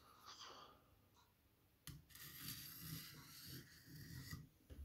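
Faint rustling and rubbing of a shrink-wrapped booklet being handled in the hand, lasting a couple of seconds in the middle and then stopping.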